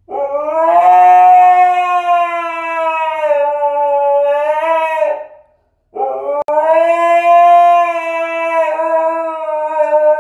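Siberian husky howling: two long, steady howls, the first lasting about five seconds and the second starting about six seconds in.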